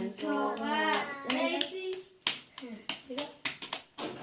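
Children chanting in a sing-song voice during a rock-paper-scissors hand game. About halfway through, the chant gives way to a quick run of sharp hand claps.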